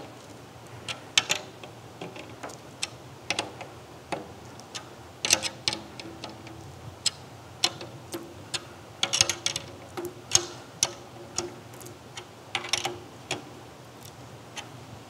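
Irregular clicks of a drum key turning the tension rods on a brass Ludwig Black Beauty snare drum as the lugs are tightened past finger tight. Light taps on the head set it ringing briefly several times.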